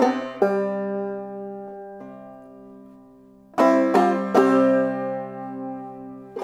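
Banjo played clawhammer style: a couple of struck notes, then a chord left ringing and fading for about three seconds, a quick run of notes about three and a half seconds in, and another chord ringing out.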